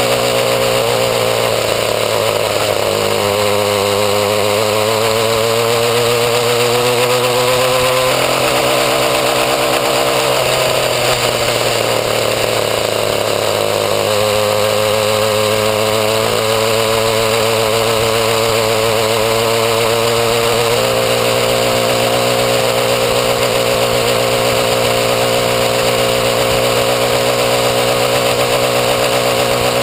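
Small 28–31 cc two-stroke weed-eater engine on a homemade motorbike, running hard under way. Its note shifts up and down several times as the throttle changes.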